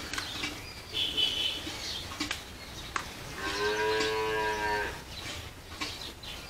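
A cow moos once: a single drawn-out call lasting about a second and a half, a little past the middle.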